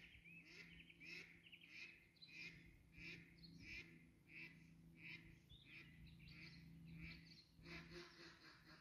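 Faint birdsong: one bird repeats a short call about every two-thirds of a second while other birds chirp around it.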